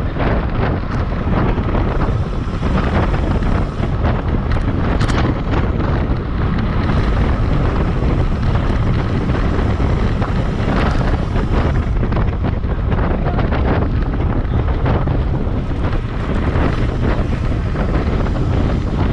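Steady wind rush buffeting the microphone of a bicycle-mounted action camera at about 27 mph in a racing pack.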